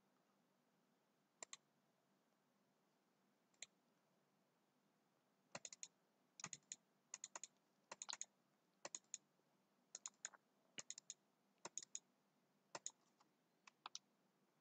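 Faint computer mouse clicks: a few single clicks, then quick double-clicks about once a second through the second half.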